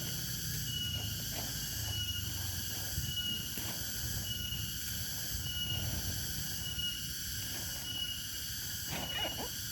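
Night insects calling, with a short high chirp repeating about once every second and a steady buzzing chorus, over a low background rumble.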